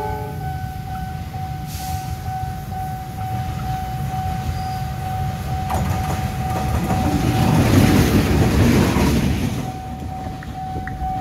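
KAI CC 206 diesel-electric locomotive approaching with its engine running, growing louder as it passes close about eight seconds in. A level crossing's warning alarm sounds over it as one steady high tone.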